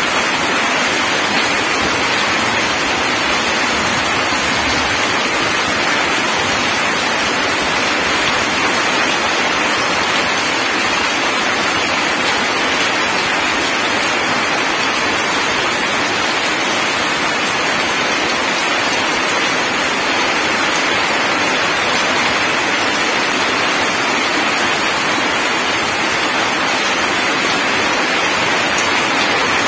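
Heavy rain falling steadily onto wet ground and puddles: an even, unbroken hiss of splashing drops.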